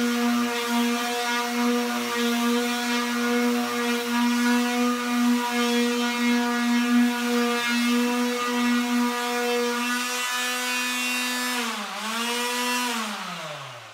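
Electric hand sander running with a steady hum as it sands an oil-paint-and-gesso canvas. About twelve seconds in, its pitch dips briefly and recovers. It is then switched off and winds down with a falling whine.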